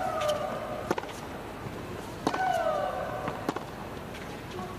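Tennis rally: rackets striking the ball with sharp pops about once a second. Twice a player lets out a long shriek that falls in pitch as she hits, once at the start and again just after two seconds.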